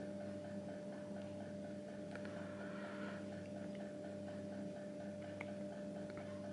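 Steady electrical hum with a faint, fast, regular ticking at about five a second and a few soft clicks.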